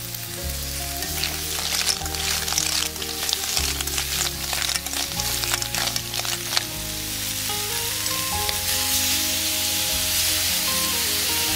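Freshwater snail shells clattering against a metal wok as they are stir-fried with a spatula in hot paste, many quick clicks over a sizzle; from about seven seconds in the clicking stops and a steady sizzle carries on. Background music plays throughout.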